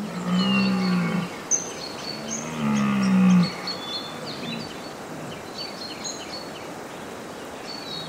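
Red deer stag roaring, the rutting call: two long, low bellows, the second starting about two seconds in. Small birds chirp throughout.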